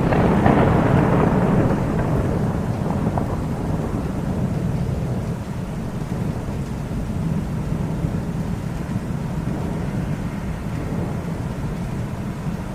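A clap of thunder breaks suddenly, loudest in the first two seconds, then settles into a long, low rumble that carries on steadily.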